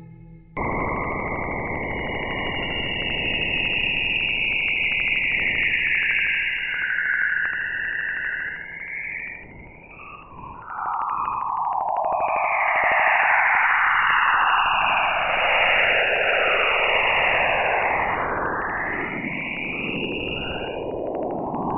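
Radio emissions from Jupiter's auroras picked up by the Waves instrument on NASA's Juno spacecraft and shifted into audible sound: a dense rush of noise that starts suddenly about half a second in, with gliding tones that first fall and then, from about ten seconds in, sweep down and up in arcs.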